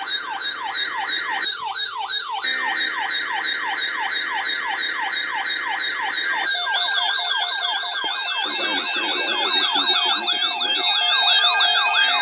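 Canadian Alert Ready emergency attention signal playing ahead of a severe weather bulletin: a loud electronic alarm tone sweeping rapidly up and down in pitch, several times a second. The pattern shifts about six and a half seconds in.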